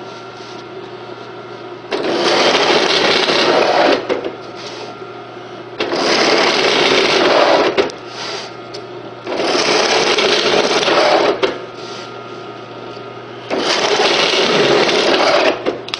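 Drill press motor running steadily while a spade bit is fed down through a plywood plank four times, each cut lasting about two seconds. The holes are being finished from the back side, having been half-drilled from the front so they come out neat and clean.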